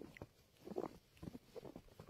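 Faint, irregular crunching footsteps in snow.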